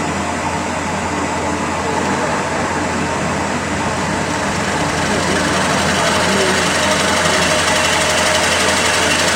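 CNC wood lathe turning a large wooden bowl: a steady machine hum with a dense cutting hiss that grows a little louder and brighter about halfway through.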